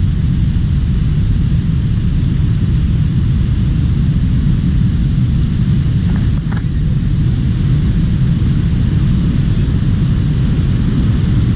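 A loud, steady low rumble with a fainter even hiss above it, unbroken throughout.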